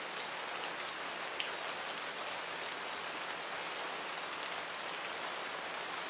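Steady rain falling on a surface: an even hiss of rainfall with scattered individual drop ticks, one a little louder about a second and a half in.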